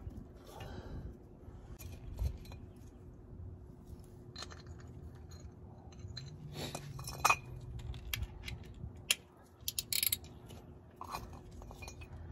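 Scattered metal clicks and clinks of a drain plug and hand tools being handled under a car, irregular rather than a steady ratchet rhythm, with the sharpest knocks a little past the middle.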